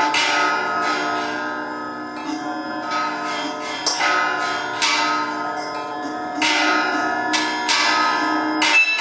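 Bells struck by hand, a dozen or so irregular strikes whose ringing tones sustain and overlap into a continuous shimmer of pitches.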